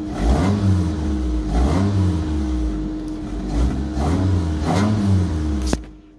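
1997 Mitsubishi Mirage's 1.8-litre four-cylinder engine revved from idle in a series of about five quick blips, rising and falling each time. It revs straight through without hiccups or breakup, a sign that the misfire from a failed coil pack has been cured by the new coil and plug. The sound cuts off suddenly near the end.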